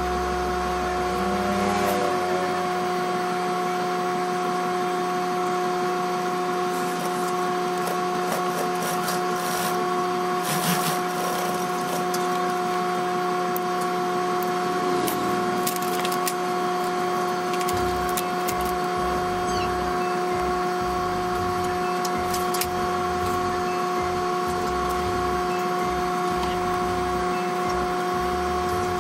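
Steady electric hum of a Juki industrial sewing machine's motor running, with fabric rustling and small clicks as the cloth is handled. From a little past halfway, a low, uneven thudding joins in.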